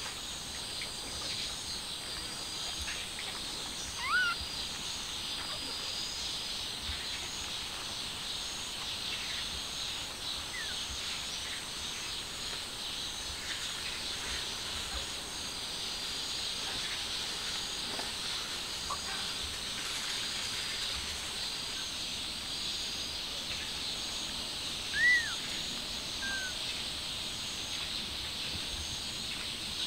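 Steady outdoor insect chirring, a high repeating trill, with a few short high squeaks over it; the two loudest squeaks come about four seconds in and near the end.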